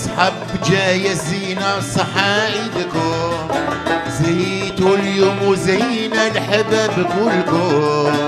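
Live Algerian Eid song: a man sings an ornamented, wavering melody over oud, violin, mandole and hand drum.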